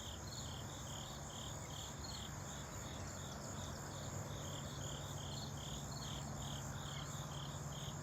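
Crickets chirping in a steady, even rhythm of about two to three chirps a second, over a continuous high insect trill. A low steady hum runs underneath.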